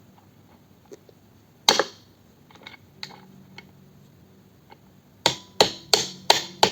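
Hard knocks from a bike part being struck by hand to force it into place without a hammer: one loud knock, a few light taps, then a fast run of hard knocks, about three a second, near the end.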